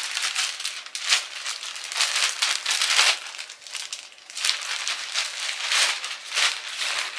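Packaging crinkling and rustling in irregular bursts as a shirt is taken out and handled.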